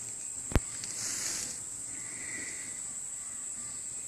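Steady high-pitched insect buzz in bushland, with a single sharp click about half a second in.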